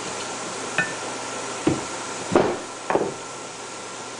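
Screwdriver and small metal engine parts knocking against a generator engine's metal housing during assembly: four short knocks in about two seconds, the first a light ringing clink, the loudest about two and a half seconds in.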